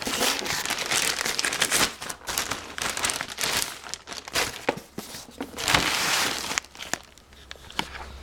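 Packaging being handled and pulled open by hand: crinkling, crackling rustle in spells, strongest about six seconds in and dying down near the end.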